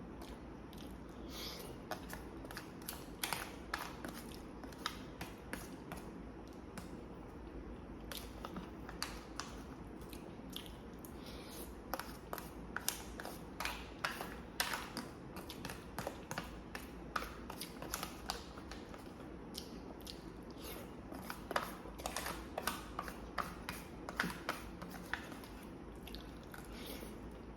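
Close-miked chewing and biting of food: many short wet mouth clicks and smacks at an irregular pace, over a steady low hum.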